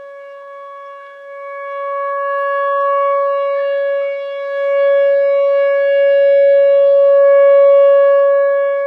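Outdoor emergency warning siren sounding for a scheduled test: one steady, sustained pitch that swells louder about a second in, dips briefly around the middle and eases off near the end.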